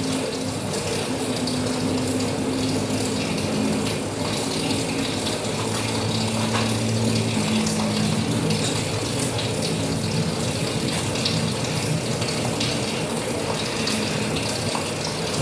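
Steady heavy rain with water running and splashing, a dense even patter, with a low hum that wavers underneath.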